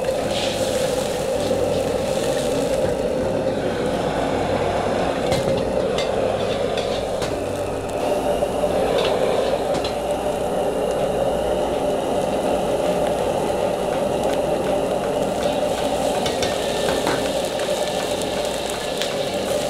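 Gas wok burner running at full flame under an empty wok, a constant rushing noise with a low hum beneath it. A few faint clicks are heard partway through.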